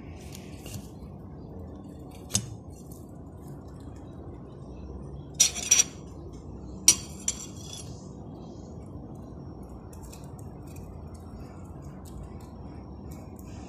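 Metal cutlery clinking against a ceramic plate: a few sharp clinks, about two and a half seconds in, a quick cluster around five and a half seconds, and another pair near seven seconds, over a steady low background hum.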